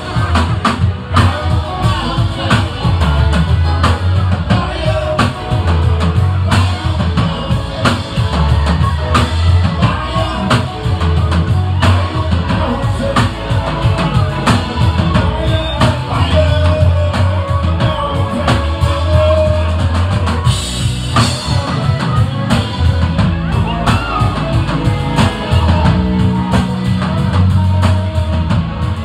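Live rock band playing loud amplified music: electric guitars, bass and a steady drum-kit beat.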